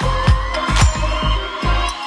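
Background music with a steady thumping beat, about two beats a second, and a thin tone rising steadily in pitch through it.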